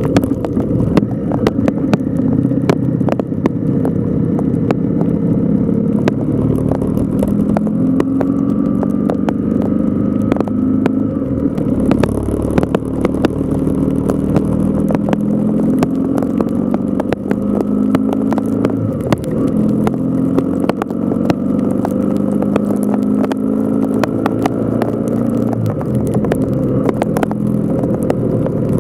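Motorcycle engine running under load on a climb, its pitch stepping up and down with throttle and gear changes. Frequent sharp ticks of sleet striking the camera and a low wind rumble run underneath.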